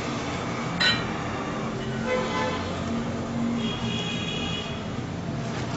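Steady background road-traffic noise, with a click about a second in and two brief horn-like toots around two and four seconds in.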